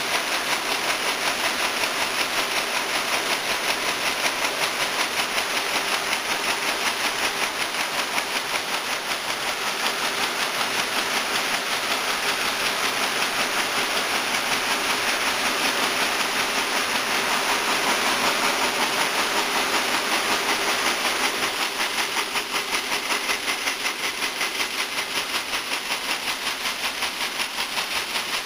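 Servo-driven multi-needle quilting machine running at a steady speed, its rows of needles stitching with a rapid, even clatter over a hiss.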